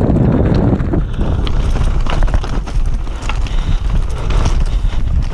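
Wind buffeting the microphone while a mountain bike rides down a rough trail, with the rattle and knocks of the bike over the ground throughout.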